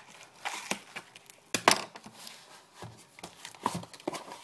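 Packaging being handled and unwrapped by hand: irregular crinkling and tearing with scattered clicks and rustles, the sharpest one about a second and a half in.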